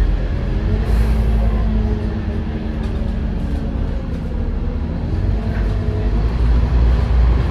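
Diesel engine and drivetrain of a Scania N230UD double-decker bus running under way over a heavy low rumble. Its pitch eases down over the first few seconds, then climbs again as the bus picks up speed. A brief hiss comes about a second in.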